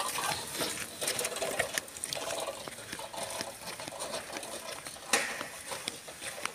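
Old roadster bicycle ridden on a paved road, its chain and frame rattling with rapid clicking that grows fainter over the first couple of seconds as it moves off.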